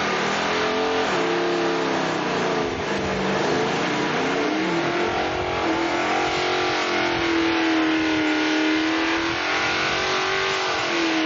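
Drag car's engine blipped up and down several times, then held at high revs for several seconds as it spins its rear tyres in a smoky burnout. The revs fall away right at the end.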